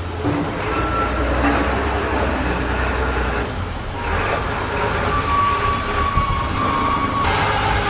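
C11 tank steam locomotive standing with steam up, giving a steady hiss over a low rumble. A thin high tone comes and goes in the hiss in the second half.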